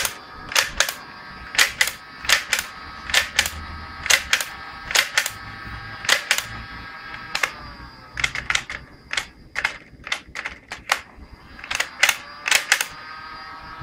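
Nerf blaster with a rotating cylinder clicking as its trigger and mechanism are worked over and over, the sharp clicks often coming in close pairs, over a steady high whine.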